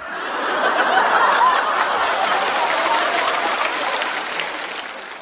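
Studio audience laughing and applauding in response to a stand-up punchline, swelling within the first second and fading away near the end.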